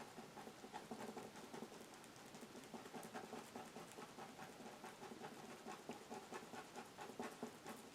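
Faint, quick, irregular taps of a stiff-bristled paintbrush dabbing acrylic paint onto canvas, stippling texture for grass.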